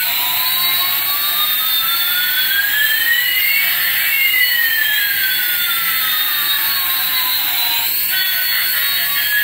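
Simulated jet engine sound: a steady hiss with two whines, one rising and one falling in pitch, that cross about four seconds in. It stops about eight seconds in, where guitar music comes back.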